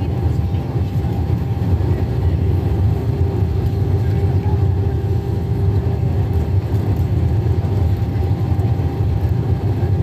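Airbus A319 cabin noise heard from a window seat over the wing: a steady low drone of the jet engines and rushing airflow, with a constant hum running through it.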